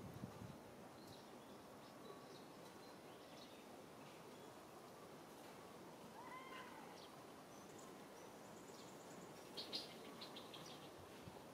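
Quiet outdoor ambience with scattered faint high chirps and clicks, a cluster of them near the end. About six seconds in, a single short animal call that rises and then falls.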